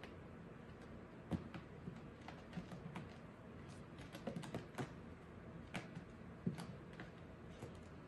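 A kitten's paws and claws tapping and scratching on an upholstered chair and a hard floor as it plays: scattered, irregular light clicks and taps, with the sharpest about a second in and again past six seconds.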